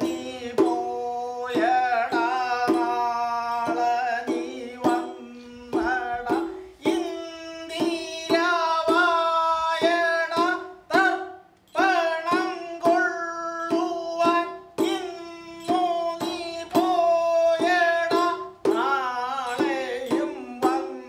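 Mizhavu, the large copper pot drum of Koodiyattam, played by hand in a long, uneven run of sharp strokes, each ringing on with a pitched tone that fades.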